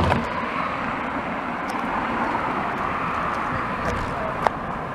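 Road traffic noise: a steady rush of passing cars on the street, with one sharp click near the end.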